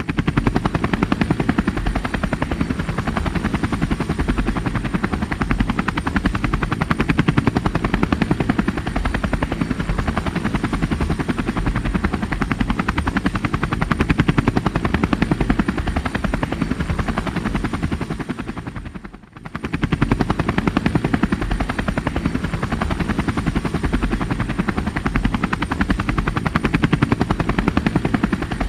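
Helicopter rotor chopping in a fast, steady beat. About two-thirds of the way through, the sound fades out briefly and then returns.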